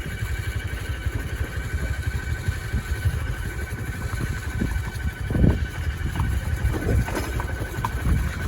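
Motorbike engine running while riding over a rough track, a steady low rumble that swells and dips, with a louder jolt about five seconds in. A steady high buzzing tone sits above it and stops near the end.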